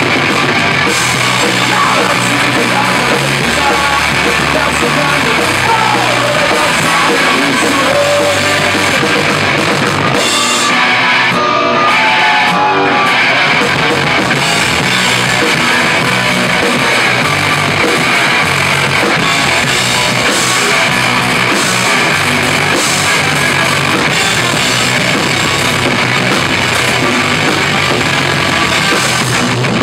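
Live punk rock band playing loud: distorted electric guitars, bass guitar and drum kit. About ten seconds in, the low end cuts out for about three seconds before the full band comes back in.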